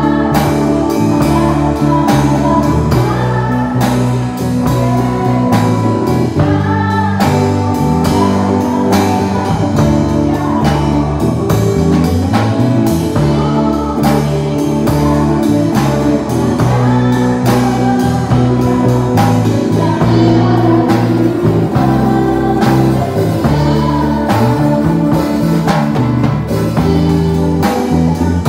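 Live band of drum kit, electric bass guitar and electric guitar playing a song, with a voice singing the melody over it.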